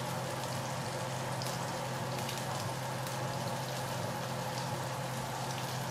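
Battered fish pieces frying in a skillet of avocado oil and butter, a steady sizzle with faint scattered crackles; the skillet is running too hot. A steady low hum sits underneath.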